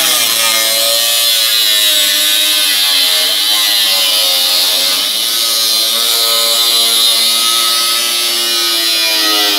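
Handheld angle grinder cutting into the sheet-metal housing of an exhaust fan: a continuous loud whine over a hiss of grinding. The motor's pitch sags and recovers several times as the disc bites into the metal and eases off.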